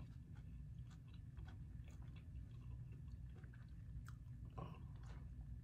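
A person chewing a bite of fried pastry with the mouth closed, faint, with small wet mouth clicks.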